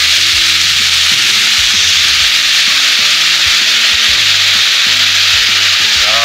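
Sliced onions sizzling steadily in hot oil in a frying pan as spoonfuls of Zhenjiang black vinegar are added and the pan steams.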